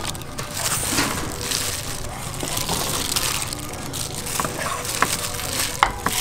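Kitchen knife chopping red chillies on a wooden chopping block, with irregular knocks of the blade on the wood.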